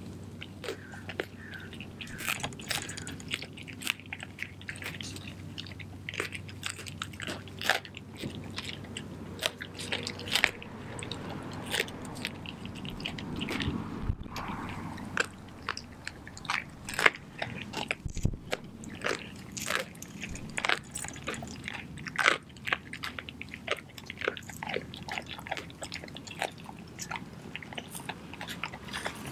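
Doberman chewing and crunching through a whole raw chicken, feathers and bones included: a steady run of wet chewing broken by frequent irregular sharp snaps and cracks.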